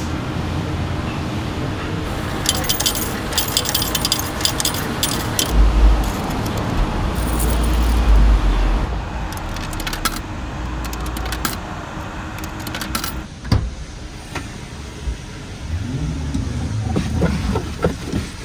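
Keys jangling in repeated bursts over steady vehicle noise with a low rumble, as in a moving car. A single sharp knock comes near the end, after which it is quieter.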